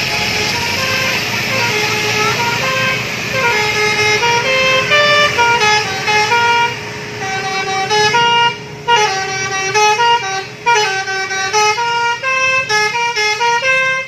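A bus's telolet horn: a set of musical air horns playing a fast tune of short notes stepping up and down, starting a few seconds in, with a couple of brief breaks.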